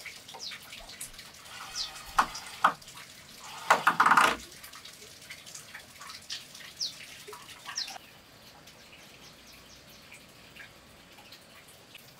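A cordless drill runs in one short burst about four seconds in, driving a screw into the timber frame, with a few sharp knocks of wood shortly before it. Short high ticks and chirps go on throughout.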